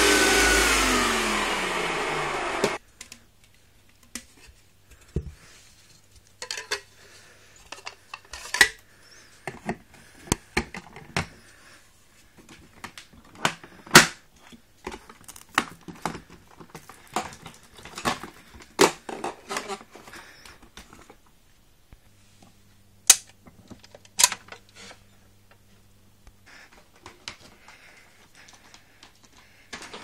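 Hoover Turbopower 2 upright vacuum cleaner's motor winding down after being switched off, its pitch falling until it stops about three seconds in. Then scattered clicks and knocks as the machine is handled.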